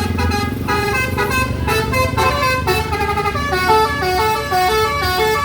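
Bus telolet air horns (a basuri set) playing a quick melody, several horn tones sounding together and stepping from note to note. A bus engine runs low underneath for the first half second.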